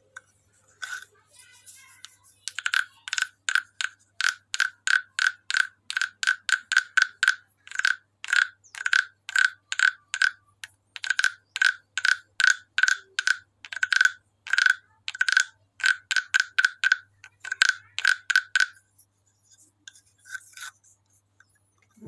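Wooden frog guiro, a croaking-frog percussion instrument, played with its wooden stick drawn across the ridged back. It gives a long string of short rasping croaks, about three a second, all on the same pitch. They stop near the end, followed by a couple of faint strokes.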